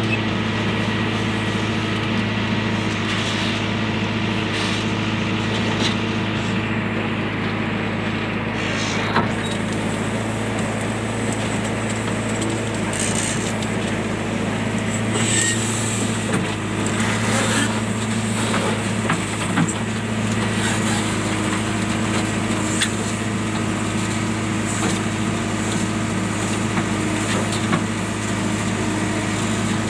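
Diesel engine of a JCB machine running at a steady idle, with a few short clicks and knocks over it.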